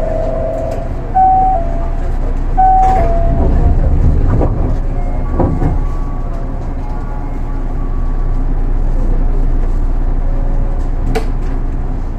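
Osaka Monorail train sounds: two short electronic beeps about one and three seconds in, then a low rumble for a few seconds over a steady low hum.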